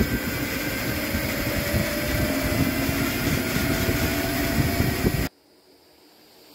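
Homemade e-bike's 500-watt brushed DC motor, overvolted from 24 V to 36 V, whining at full throttle through its chain drive, the whine rising steadily in pitch as the bike picks up speed under heavy wind rush on the microphone. It cuts off suddenly about five seconds in, leaving a faint sound that slowly grows louder.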